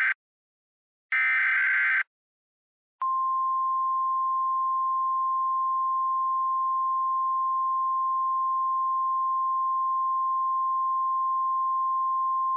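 Emergency Alert System SAME digital header bursts: the tail of one and a whole second short screeching data burst. After a second of silence comes a steady single-pitch NOAA Weather Radio 1050 Hz warning alarm tone held for about ten seconds, the alert that heralds a new warning message.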